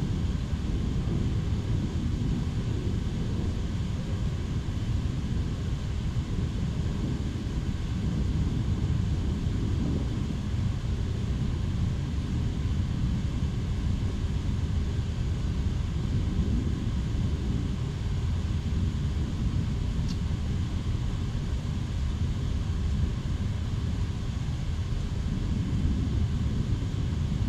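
Steady low rumble of wind buffeting the camera's microphone, wavering in strength with no distinct events.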